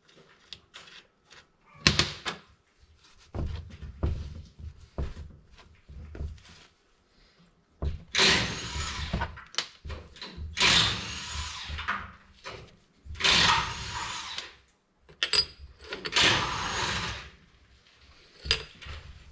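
Hand work on a Tofaş four-speed gearbox on a steel bench. Metal parts click and knock, with one sharp knock about two seconds in and some low thuds after it. Then come four long, rasping rubs about a second and a half each, a rag wiping the parts, with a few sharp metal clicks near the end.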